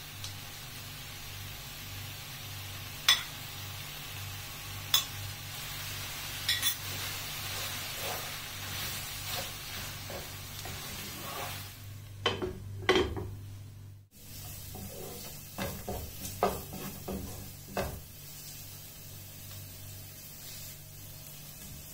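Food sizzling in a granite-coated frying pan while a spatula stirs and scrapes through it, with sharp knocks of the spatula against the pan every few seconds. The sound breaks off briefly about two-thirds through, then sliced onions sizzle as they are stirred, with a few more knocks.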